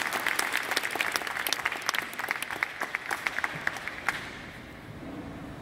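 Audience applause, the claps thinning out and stopping about four seconds in. Near the end a faint held note begins.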